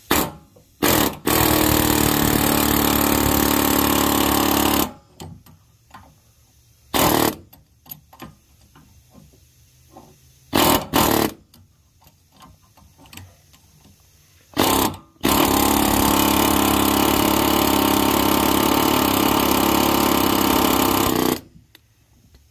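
Pneumatic air hammer running in bursts, hammering on a pressure-washer pump stuck on the Honda GX390 engine's crankshaft to drive it off. It makes a few brief blips at first, then a run of about four seconds, short blips in the middle, and a six-second run in the second half.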